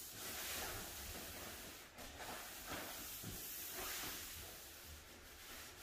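Pad applicator on a pole sliding across a hardwood floor, spreading wet polyurethane: a faint hiss that swells and fades with the strokes.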